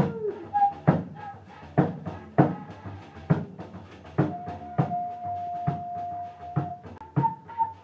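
Music: a drum struck about a dozen times at an uneven, slow pace, with a steady high tone held for a couple of seconds from a little past halfway.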